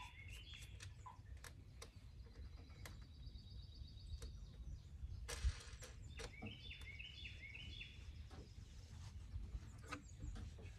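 Quiet outdoor ambience: a songbird sings short runs of falling chirps twice over a steady low rumble. Faint clicks and one brief knock about five and a half seconds in come from handling the solar panel on its mount.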